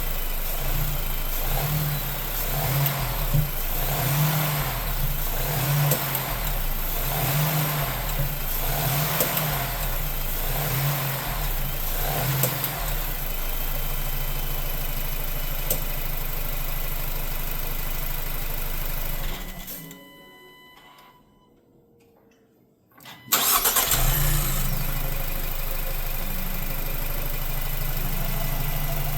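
Ford 2.0L EcoBoost four-cylinder engine of a 2024 Lincoln Corsair running, its note rising and falling about once a second at first, then settling steady. About two-thirds through the sound drops to near silence for about three seconds, then comes back abruptly. The owner hears a rattle and pop from this new engine that come and go and doesn't know the cause; he wonders about an intake manifold actuator.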